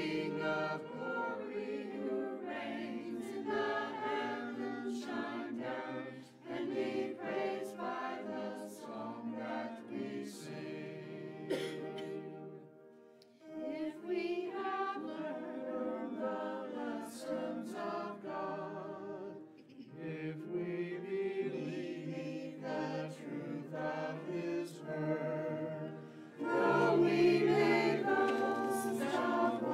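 Mixed church choir of men's and women's voices singing an anthem, in phrases with short breaks between them, growing louder for the last few seconds.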